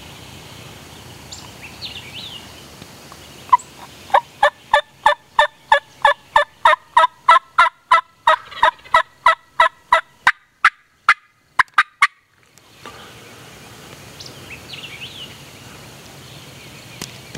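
Wild turkey calling: a long, loud run of sharp, evenly spaced notes, about three or four a second, starting a few seconds in and stopping abruptly after about eight seconds. Faint songbird chirps come before and after it.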